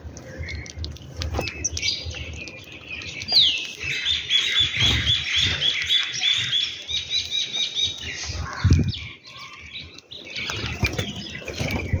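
House sparrows chirping, with a fast run of repeated high chirps through the middle and a single falling note just before it. Low fluttering thuds, like wingbeats, come and go, the strongest a little before the end.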